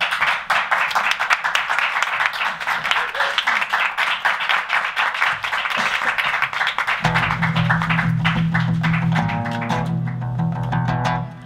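An audience applauding. About seven seconds in, music starts with a low held note and an acoustic guitar, and steady plucked notes join about two seconds later.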